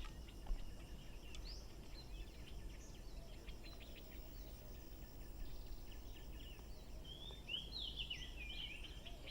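Faint outdoor ambience with birds chirping over a low steady background hiss, the chirps coming thickest in a quick run near the end.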